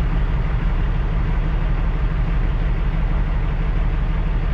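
Cummins ISX diesel engine of a Kenworth W900L idling, heard from inside the cab as a steady low rumble.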